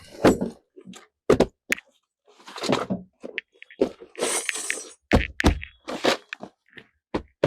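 Foley props worked by hand to fake a person sitting down on a wooden bed: an irregular string of knocks, thuds and short creaking scrapes, with a faint squeak or two.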